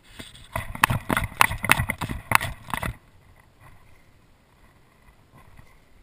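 A quick, irregular run of about eight to ten sharp knocks and clacks over less than three seconds, then they stop.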